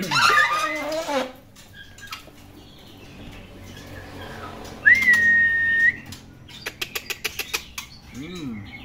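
Young white-rumped shama (murai batu) in a cage giving a short burst of quick warbling notes that sweep up and down, then one long steady whistled note held for about a second. A quick run of light clicks follows near the end.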